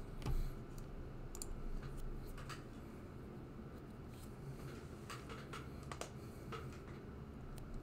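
Scattered, irregular clicks of a computer keyboard and mouse, over a low steady hum.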